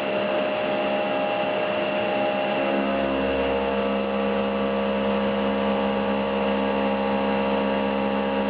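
CNC machine running with a steady hum and whine made of several fixed tones. A deeper low rumble joins about three seconds in.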